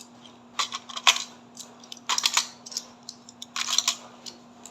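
Small plastic toy fish clicking and clattering as they are set into a toy fishing game, in three short clusters of clicks, over a faint steady hum.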